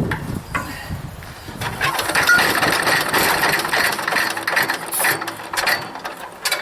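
Wood chipper's small gasoline engine being pull-started, sputtering for a few seconds without catching. A knock comes at the start. The owner takes the sputtering for a dirty carburetor with a bad float.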